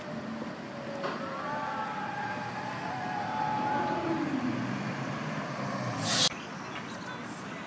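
City street traffic with a tram passing, a steady rush of road noise with thin whining tones over it. About six seconds in comes a loud rush of noise as a car passes close, which cuts off suddenly.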